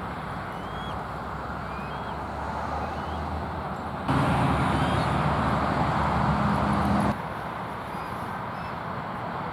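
Steady outdoor rumble of road traffic, with a louder low hum that comes in about four seconds in and cuts off suddenly about three seconds later. Faint, short bird chirps sound about once a second over it.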